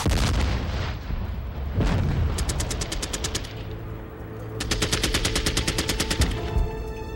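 Automatic gunfire in two bursts of about ten shots a second over a low rumble: a one-second burst about two and a half seconds in, and a longer burst of under two seconds about a second later. A heavy thump opens it and another comes near two seconds in.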